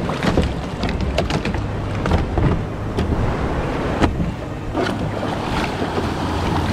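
Whitewater from breaking surf rushing and washing around a plastic kayak hull, with wind buffeting the microphone. Several sharp knocks and splashes cut through it, a cluster about a second in and single ones about four and five seconds in.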